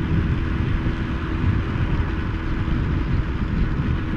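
Wind noise rumbling over a helmet microphone on a moving motorcycle, with the visor partly open, over a steady engine hum.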